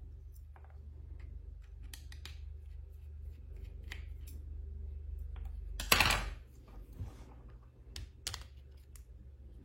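Small clicks and taps of an opened smartphone's parts being handled and worked on, with one louder, sharper click-and-scrape about six seconds in, over a steady low hum.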